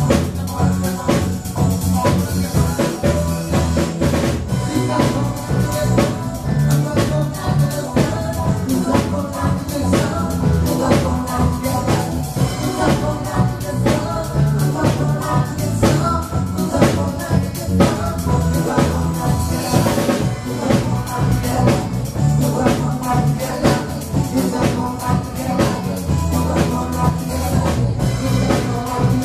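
Band music with a drum kit keeping a steady beat under the other instruments.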